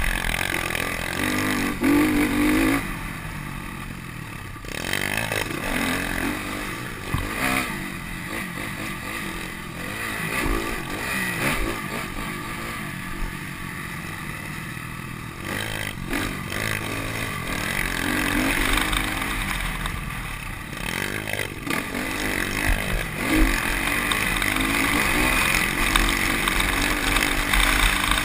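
Single-cylinder four-stroke engine of a 2010 Honda CRF250R dirt bike, heard on board while it is ridden, revving up and falling back again and again with the throttle, with a few quieter off-throttle stretches.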